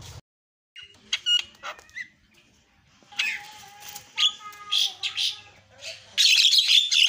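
Javan myna singing a varied song: scattered sharp whistled notes, then a held tone under harsh notes, and a loud run of rapid harsh chattering notes near the end.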